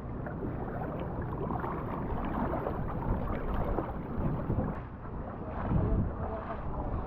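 Steady rushing wind noise buffeting the microphone in hurricane weather, with a low rumble underneath.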